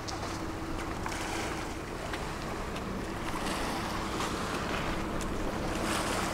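Commuter ferry underway: a steady engine drone with a low hum and water rushing past the hull, with wind on the microphone.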